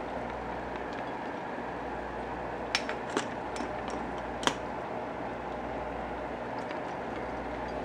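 Water bubbling steadily in a saucepan on the stove, with a few light clicks of metal tongs against the pan and the silicone egg cups as they are lifted out, the sharpest about four and a half seconds in.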